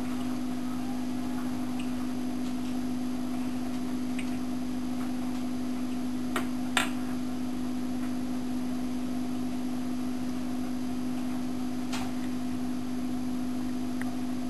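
Pet water fountain's electric pump humming steadily at one low pitch, with a few faint ticks and two sharp clicks about six and a half seconds in.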